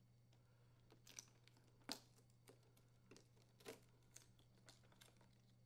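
Faint crinkling and ticking of the foil-wrapped ice maker fill tube heater being peeled off the fill tube: a scattering of small, sharp sounds, the loudest about two seconds in.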